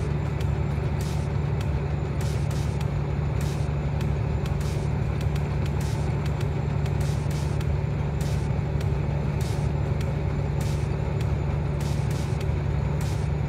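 Steady motor-vehicle running noise: an even low drone with road hiss, with faint high ticks about twice a second.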